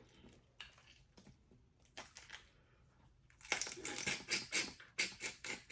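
Close-miked eating sounds: a few faint mouth clicks, then from about three and a half seconds in a dense run of wet chewing and lip smacking.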